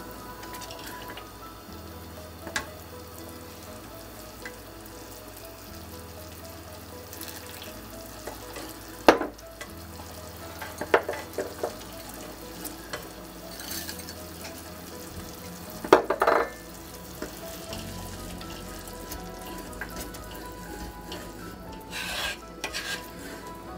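A wooden spoon stirring thick blended soup in a pot, with a few sharp knocks of the spoon against the pot, the loudest about nine and sixteen seconds in. Soft background music plays underneath.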